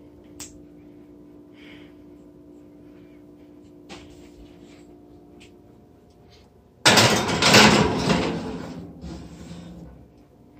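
Gas oven door pulled open with a sudden loud clatter about seven seconds in, then a glass baking dish scraping onto the metal oven rack, fading over a couple of seconds. A steady low hum runs underneath, with a few faint clicks before it.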